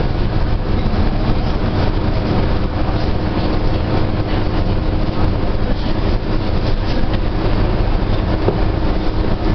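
Cabin noise inside a moving bus: a steady low rumble of engine and road, with a faint steady hum and light rattling.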